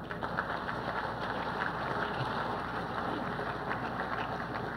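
Audience applauding, many hands clapping at once; it starts suddenly and holds at an even level.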